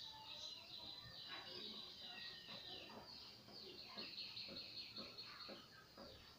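Faint chirping of small birds: many quick, high, mostly falling chirps overlapping throughout.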